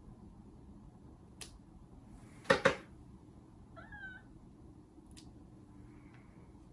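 Sphynx cat giving one short, faint, wavering meow about four seconds in. Before it, a quick pair of sharp clicks from nail clippers trimming her claws, with a few lighter clicks around them.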